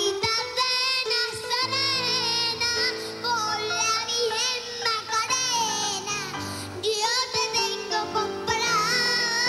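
A five-year-old girl singing into a microphone with a wide vibrato over a musical accompaniment of held notes; the host hears her as a little off-key.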